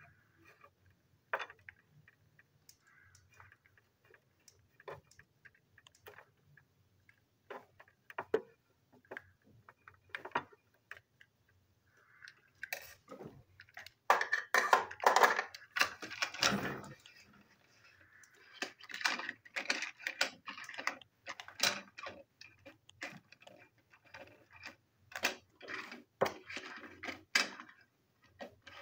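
Small sharp clicks of a screwdriver working the screws of a plastic TrackMaster toy van, then denser plastic clicking and clatter from about halfway as the vans are handled and set down on the table.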